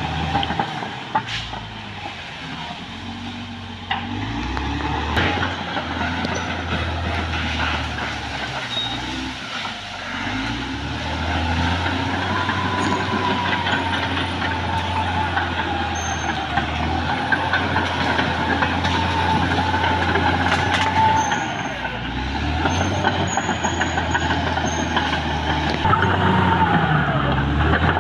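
Caterpillar D6R XL crawler bulldozer working: its diesel engine runs steadily under load, with a few sharp knocks near the start. A wavering high whine rises and falls through the middle.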